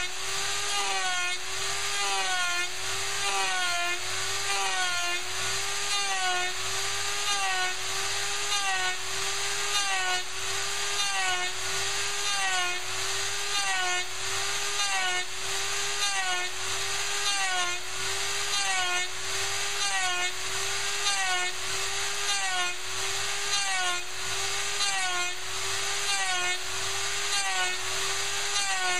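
Bosch 500 router spinning steadily with its bit cutting into hardwood, under the CNC's stepper motors driving the trapezoidal lead screws. The stepper tone rises and falls evenly about once a second as the cutter moves in repeated looping trochoidal passes.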